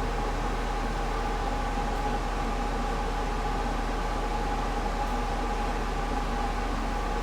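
Washing machine running: a steady motor hum with a constant whine over it.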